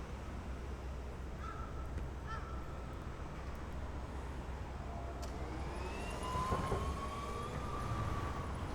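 Steady low background rumble with a couple of short crow caws early on, then a siren rising in pitch and holding for a few seconds in the second half.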